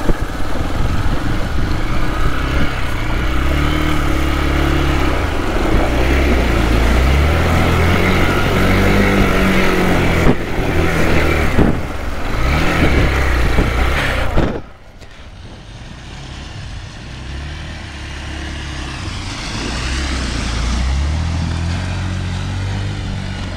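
Hero XPulse 200's single-cylinder engine heard close up from the bike as it rides over a rocky, wet riverbed, the revs rising and falling with the throttle. About two-thirds through, it cuts suddenly to a quieter motorcycle engine and water splashing as a bike rides through a shallow river.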